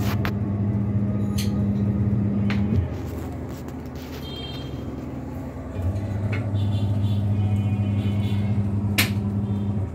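Washing machine motor humming in short runs: it stops about three seconds in, starts again about three seconds later and stops just before the end, with a few light clicks and knocks from the machine.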